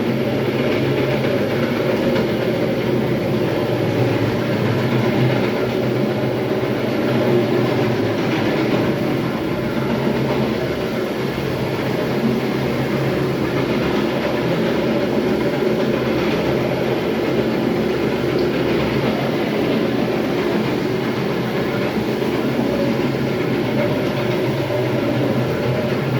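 Electric terrazzo grinding machine running steadily on a floor: a constant low motor hum under a continuous grinding noise.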